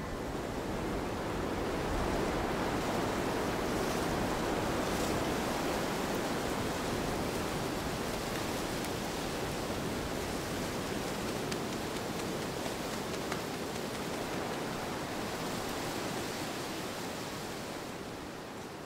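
Wind rushing steadily through the tops of tall spruce trees, swelling a couple of seconds in and easing a little near the end.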